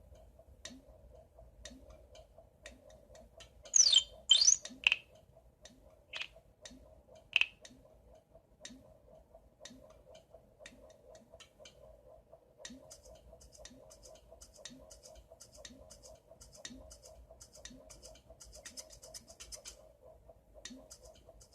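Electronic children's-TV sound effects: a steady faint hum with a soft pulse about every second, broken by a few high squeaky chirps and pitch sweeps about four to seven seconds in, then faint rapid ticking.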